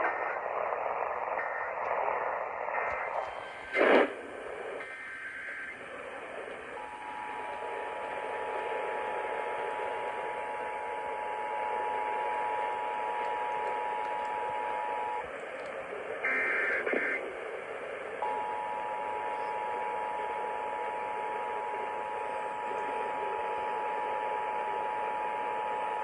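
Emergency Alert System two-tone attention signal (two steady tones, about 853 and 960 Hz, sounding together) received over AM radio with hiss and static. It sounds for about eight seconds, breaks off for about three seconds with a brief higher-pitched burst, then sounds again for about eight seconds. A sharp crackle comes about four seconds in.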